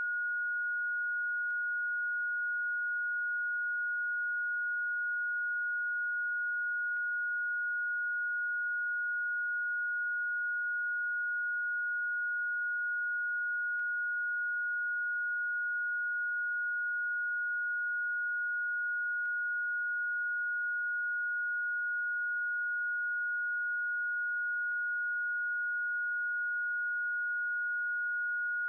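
Electronically generated pure sine tone, a Rife frequency, held steady at one fairly high pitch with no change in pitch or loudness.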